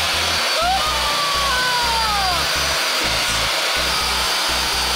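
Portable table saw running at full speed, cutting through a wooden board.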